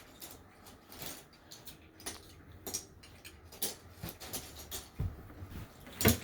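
Plastic Lego bricks clicking and clattering irregularly as pieces are picked through and handled, with one louder clack near the end.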